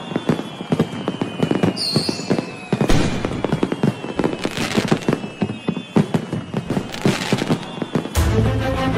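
Fireworks sound effect: rapid crackling and popping with several louder bangs, over a slowly falling whistle in the first few seconds. Theme music comes in about eight seconds in.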